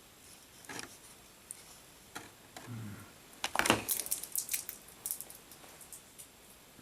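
Plastic and cardboard toy packaging being handled: scattered clicks and crinkles, with the loudest cluster of sharp clicks and rustling about three and a half seconds in.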